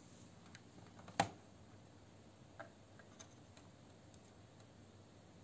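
Multimeter test probe knocking against a circuit board as it is set in place: one sharp click about a second in, then a few lighter ticks.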